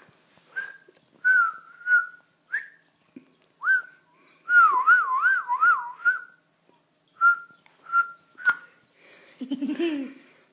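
Whistling: a string of short, clear whistled notes, then a warbling whistle that wavers up and down about three times a second, then more short notes. A brief lower sound comes near the end.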